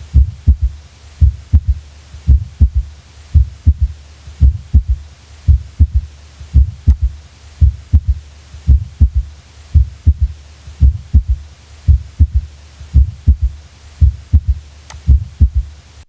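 Recorded human heartbeat, as heard through a stethoscope, with a third heart sound (S3): a low-pitched extra sound that follows the second heart sound in early diastole. The low thuds repeat in a steady rhythm.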